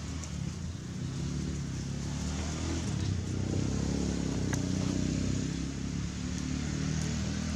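A motor vehicle's engine running: a low, steady hum that grows louder through the middle and eases toward the end, like a vehicle passing or idling close by.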